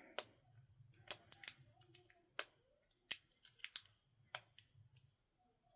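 Lock pick working the pins of a 40mm padlock: faint, irregular metallic clicks and ticks scattered every half second or so as the pins are tickled and set under tension.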